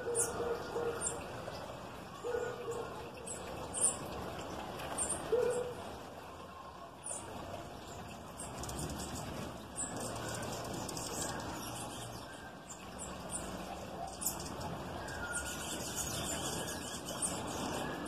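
Small birds chirping in short, high calls throughout, while a dove gives a low coo three times in the first six seconds.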